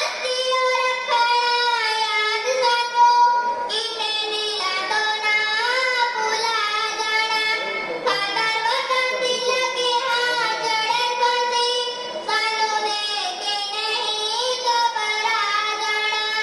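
A high voice singing a slow, mournful-sounding melody with long held notes and pitch glides, set to music.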